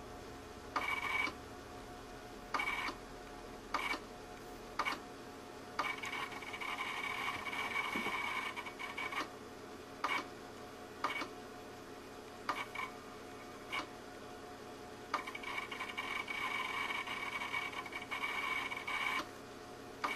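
Failing IDE hard drive in a Power Macintosh 6500/275 making repeated short bursts of noise with a high tone, roughly once a second, with two longer runs of three to four seconds, over a steady computer hum. The drive has failed and keeps grinding away while the Mac tries to create a directory on it.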